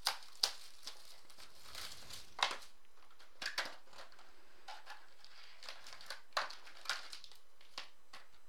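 Plastic wrap crinkling and tearing as a sealed trading card box is opened, then the card packs inside rustling as they are handled, in short separate crackles.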